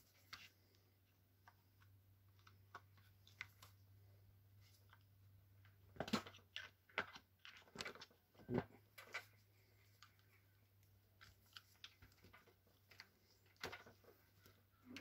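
Scattered small clicks and knocks of the DeWalt DCH273 SDS drill's plastic housing and internal parts as it is pried open and its gearbox lifted out, with a run of sharper clicks from about six to nine seconds in.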